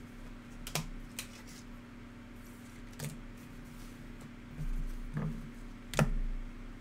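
Trading cards handled and set down on a tabletop: about five light taps and clicks, with dull knocks on the table, the loudest tap about six seconds in, over a steady low hum.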